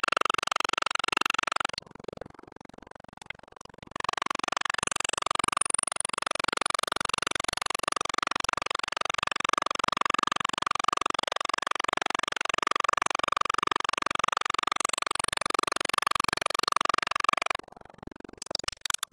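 Grizzly G4015z mill/lathe spindle running with a steady whine while a drill bit cuts into a metal chuck adapter plate. The sound drops away for about two seconds near the start, then runs again and stops shortly before the end.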